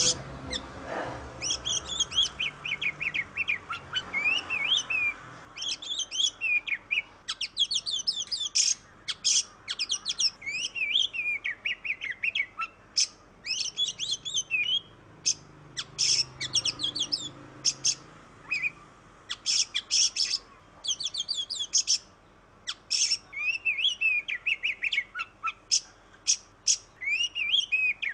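Oriental magpie-robin (kacer) singing an almost unbroken, varied song of quick high whistles, sliding notes and sharp chips, with only brief pauses.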